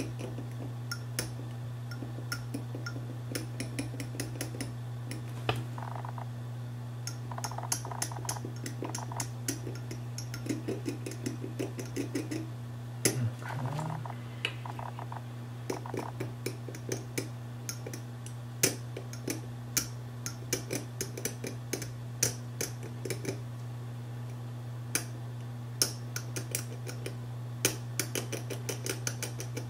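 Small metal pen-shaped tool scratching and scraping over the motor flex contact pads on a hard drive's base casting, in many short, quick strokes, to clean the contacts. A steady low hum runs underneath.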